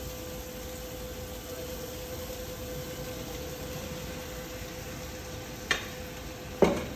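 Steady hiss with a constant hum from the kitchen's extractor hood and cooking hob while a pan of vegetables fries. Near the end come two sharp clinks of a metal ladle against a steel mixing bowl.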